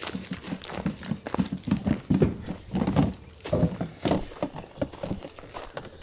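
Irregular hollow knocks, clatter and rustling of camping gear being handled and set down.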